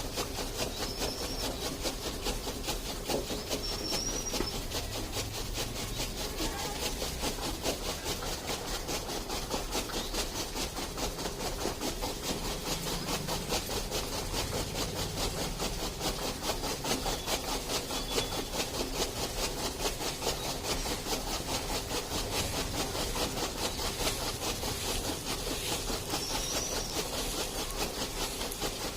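A buffalo being milked by hand: a steady rhythm of milk squirting into a pail, stroke after stroke.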